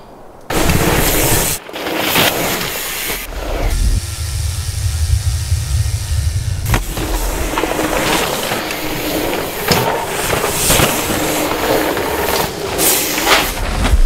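Mountain bikes ridden fast down a dirt bike-park trail: tyres crunching and skidding on loose dirt, with repeated knocks and rattles from the bikes and a stretch of deep rumble in the middle.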